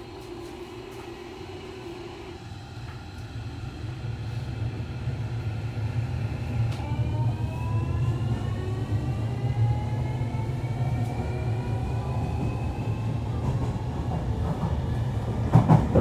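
JR Kyushu Series 305 electric train heard from inside the car as it accelerates. Its Toshiba IGBT VVVF inverter and permanent-magnet synchronous motors give a whine of several tones that rise in pitch from about seven seconds in, over a low running rumble that grows steadily louder. A few rail-joint clacks come near the end.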